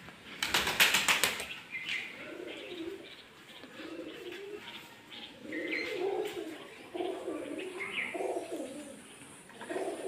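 Indian ringneck parakeet flapping its wings in a quick burst about half a second in, then making soft, low chattering sounds broken by short higher chirps.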